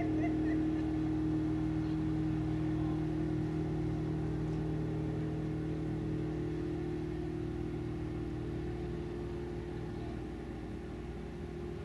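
Motorboat engine droning steadily across the water, its hum slowly fading and rising a little in pitch in the second half as the boat runs along the lake.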